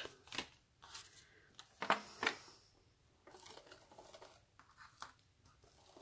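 Paper and card stock being handled and pressed down on a craft desk: a few brief rustles and taps, then a longer soft rustle about three seconds in.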